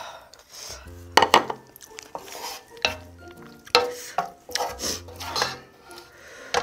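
Eating utensils clinking against dishes during a ramyeon meal: a string of sharp, irregular clinks, over background music.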